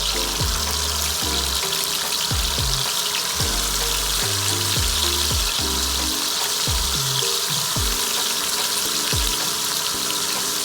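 Background music with a repeating deep bass beat, over a steady sizzling hiss of food frying in a pan.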